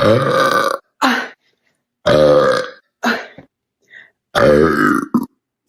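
A woman belching loudly over and over: three long burps about two seconds apart, each followed by a short one.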